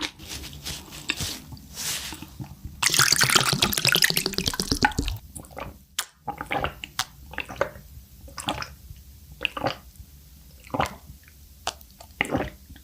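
Close-miked mouth sounds of a person eating: wet smacks and clicks, with a longer, louder slurp about three seconds in.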